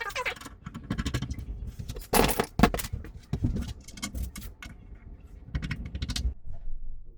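Irregular knocks, clicks and scrapes of hand work fitting knobs to wardrobe doors, with the loudest knocks about two seconds in.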